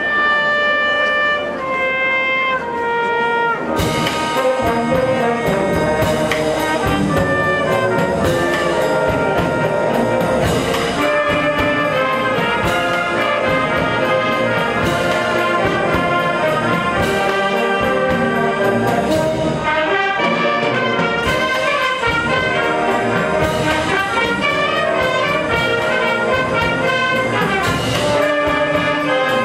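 Wind band playing: a few seconds of sustained held melody notes, then about four seconds in the full band of brass and woodwinds comes in, with percussion marking a steady beat.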